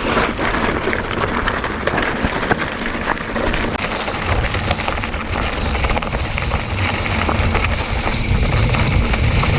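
Mountain bike rolling fast down a dirt trail: tyre noise with frequent clicks and rattles from the bike and chain, and wind buffeting the microphone that grows stronger about four seconds in.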